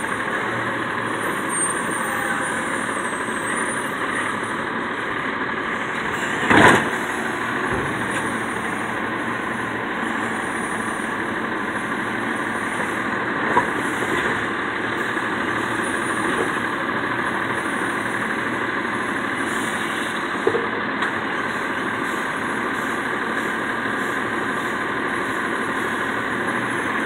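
Automated side-loader garbage truck running steadily while its arm grabs and lifts wheeled trash carts into the hopper. One loud bang about a quarter of the way in, and a couple of lighter knocks later.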